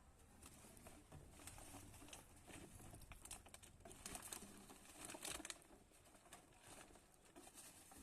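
Near silence in a small room, with a few faint scattered rustles and clicks.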